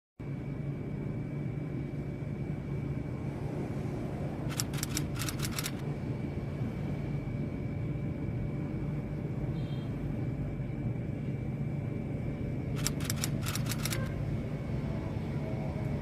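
A steady low mechanical hum, with two short runs of rapid clicking, about four and a half seconds in and again near thirteen seconds.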